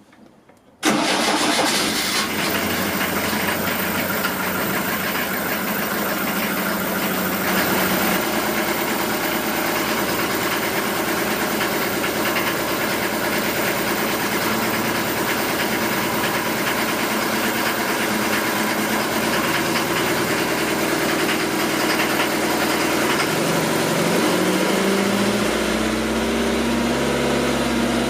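Motorboat engine starting about a second in, then running steadily. Near the end its speed rises and the pitch goes up.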